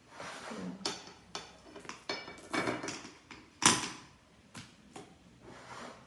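Cutlery clinking and scraping on a plate while breaking into crisp pan-fried misua noodles, in irregular scratchy bursts with a sharp knock about three and a half seconds in.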